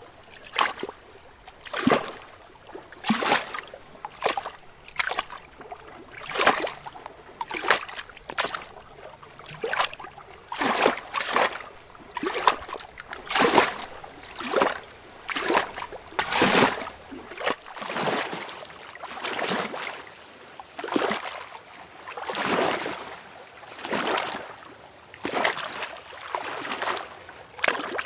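Lake water lapping and splashing in irregular small surges, about one or two a second, with the surges turning softer and more drawn-out in the second half.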